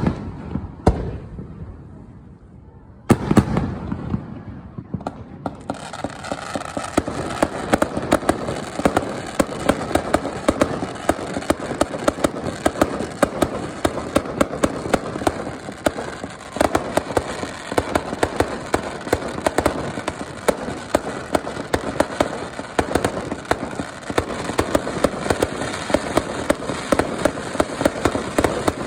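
Fireworks: a few separate bangs, a big bang about three seconds in, then from about six seconds on a dense, unbroken crackle of many rapid bursts.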